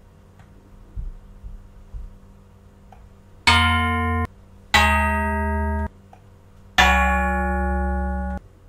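Three sustained synthetic notes played back in the LMMS music software, each starting sharply, holding a steady pitch with a bright, guitar-like tone and cutting off abruptly; the third note is the longest. Two soft clicks come before the first note.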